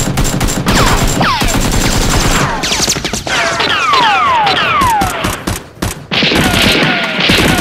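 Rapid gunfire sound effects: dense volleys of shots, with a string of falling-pitch zaps between about one and six seconds in.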